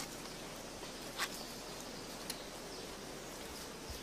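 Steady forest-floor ambience, an even hiss of the kind insects make, with two soft clicks about a second and two seconds in.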